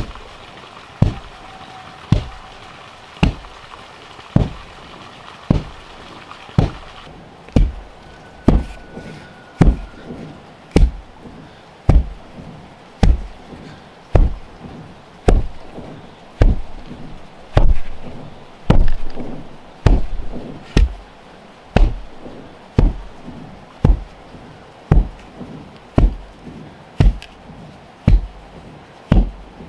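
Wooden-block hand tamper pounding loose earth, dull thuds at an even pace of about one blow a second, compacting a dirt floor.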